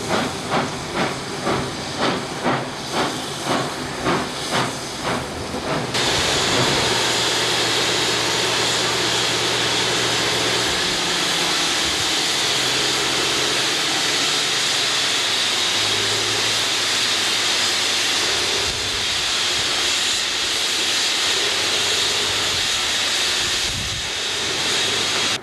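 Manitou & Pikes Peak Cog Railway steam locomotive No. 4 exhausting in even chuffs, about two a second, for the first six seconds. The chuffs suddenly give way to a loud, steady hiss of escaping steam.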